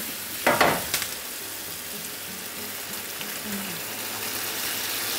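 Strawberries frying in a hot pan, sizzling, with a loud flare of sizzle about half a second in. Balsamic vinegar is poured into the pan near the end, and the hiss grows louder.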